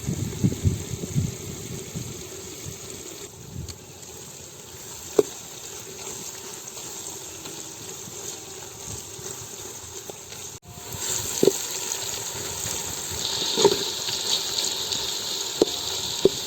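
Sliced onions frying in hot oil in a pot, a steady sizzle with a few light knocks. About ten and a half seconds in the sound breaks off for an instant and returns with a brighter hiss.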